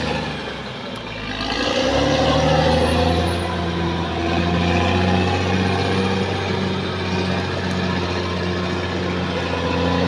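Caterpillar D6R XL crawler bulldozer's diesel engine running under load while pushing soil with its blade; it eases off about a second in, builds back up a second later, then holds a steady drone.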